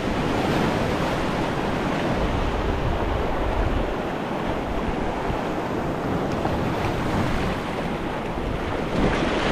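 Surf breaking and washing over shoreline rocks, a steady rush of water, with wind buffeting the microphone.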